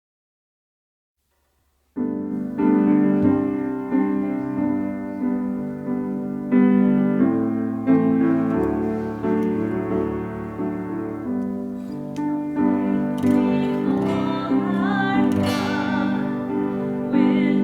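Piano music: slow sustained chords begin about two seconds in, after dead silence.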